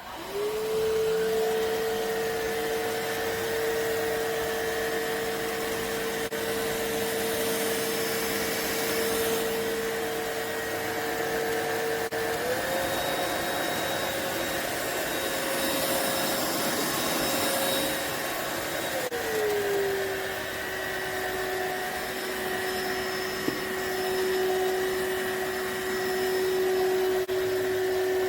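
iwoly C150 cordless stick vacuum switched on, its motor rising quickly to a steady whine. About twelve seconds in the pitch steps up, and about seven seconds later it drops to a lower pitch than before.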